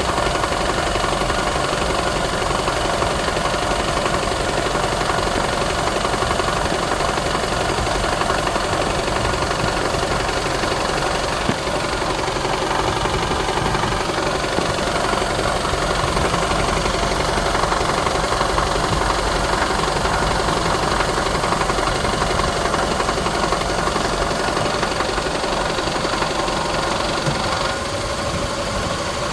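2017 Toyota Camry SE engine running steadily with a rattle that the owner cannot place; new engine mounts and a new belt tensioner have not cured it. The sound drops slightly in level near the end.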